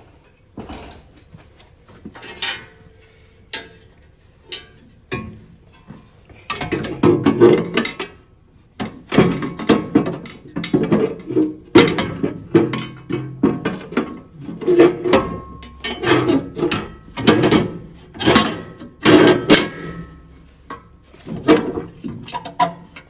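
Hand tools knocking and clanking on metal tractor parts during repair work: a few scattered clinks, then a run of loud, ringing metal strikes about once a second from roughly seven seconds in, stopping shortly before the end.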